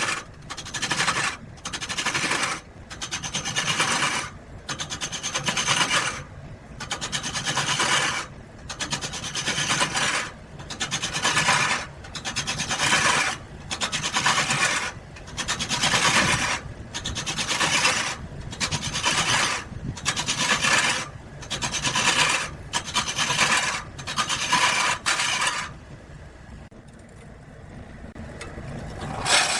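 Rhythmic rasping strokes of a hand tool working wood, roughly one a second, which pause a few seconds before the end.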